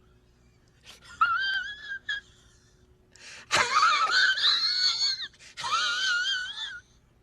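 A high-pitched, wavering wheezing cry, like a wheezy laugh, in three bouts: a short one about a second in, a loud longer one from the middle, and a last one near the end.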